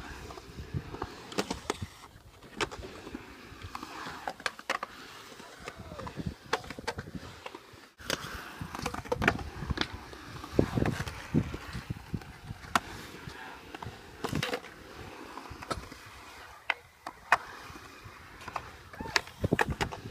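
Skateboard wheels rolling and carving on smooth concrete, with repeated sharp clacks as the board and trucks hit and land.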